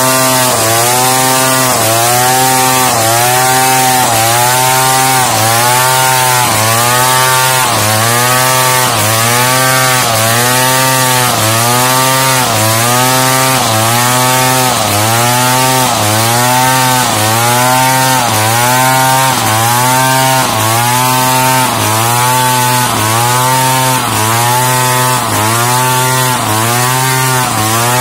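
Large two-stroke chainsaw ripping lengthwise through a pelawi-wood log, running under full load. Its engine pitch sags and recovers in a steady rhythm a little more than once a second as the chain is worked along the cut.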